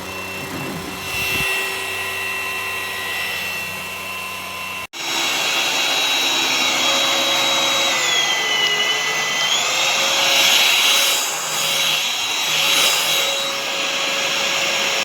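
SUXIANGVAC 350W cordless stick vacuum cleaner running with a steady motor whine. About five seconds in the sound cuts to another take, and a little later the whine dips in pitch for about a second and a half, then comes back up.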